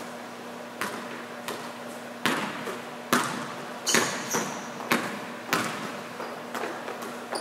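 A basketball being dribbled on a gym floor: about ten sharp bounces at an uneven pace as the player works the ball against a defender.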